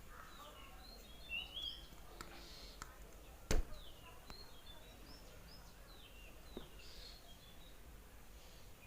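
Small birds chirping on and off, short sliding calls, with one sharp click about three and a half seconds in and a fainter click later on.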